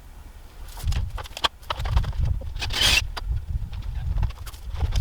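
Wind buffeting the microphone as a gusty low rumble that picks up about a second in, with a few sharp clicks and a brief rustling scrape about three seconds in.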